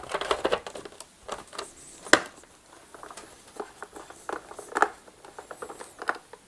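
Base plate being fitted back onto an Oreck vacuum cleaner head and its screws driven in with a hand screwdriver: scattered light clicks and knocks of the tool and parts, with one sharper click about two seconds in.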